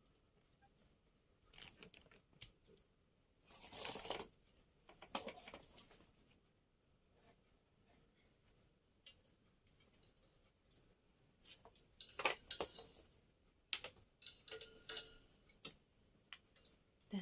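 Clicks, taps and rustles of small parts being handled and fitted together, with longer rustling about four and about twelve seconds in.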